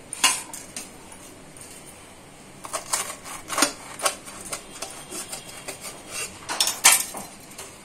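Scattered sharp clinks and knocks on a stainless steel plate as a rolled bundle of colocasia leaves is handled and tied on it, loudest just after the start and again near the end.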